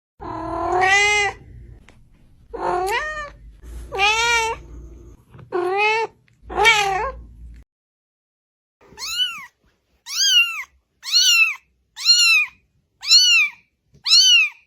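Domestic cat meowing: five drawn-out meows rising and falling in pitch over a low hum, then, after a short pause, a run of short, identical meows repeated about once a second.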